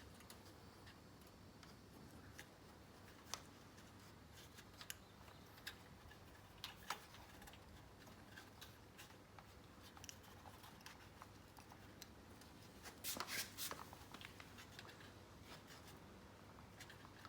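Faint, scattered clicks and light scrapes of electrical wire being pushed by hand through a tight gap in the caravan's frame, with a short flurry of clicks about 13 seconds in.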